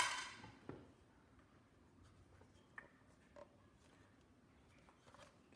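A sharp metallic clink with a short ringing tail right at the start, as the small metal parts of the cooker's pressure release valve are set down on the desk. Then a quiet room with a few faint clicks of handling.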